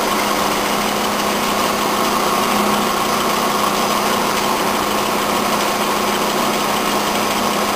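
Okuma-Matrix GP33 OD cylindrical grinder running: a steady machine hum over an even hiss from the spinning grinding wheel and drives, unchanging throughout.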